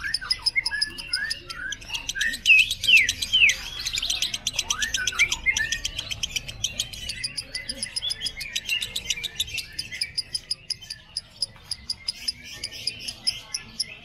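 Yellow 'padi' lovebird giving its 'ngekek' song: a long, rapid, unbroken high chatter, with sliding chirps mixed in during the first half.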